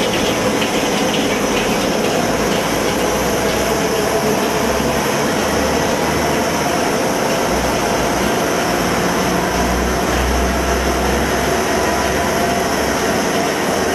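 Electric popcorn machine's stirring motor turning the agitator arm in the kettle as the oil heats, a steady running noise with a low hum that swells and fades.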